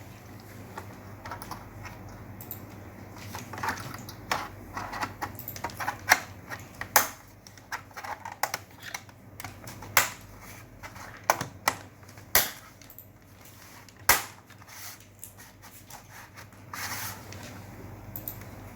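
Irregular sharp clicks and light knocks of tools and small computer parts being handled while an all-in-one PC is taken apart, with a brief scraping sound near the end.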